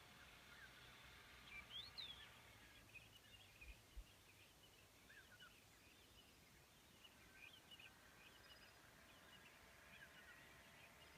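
Faint birds chirping: many short, scattered calls over a quiet outdoor background, with one louder call about two seconds in.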